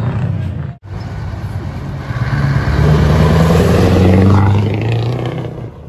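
Heavy truck's diesel engine revving hard as it pulls past at close range: the engine note climbs for about two seconds, then fades away near the end.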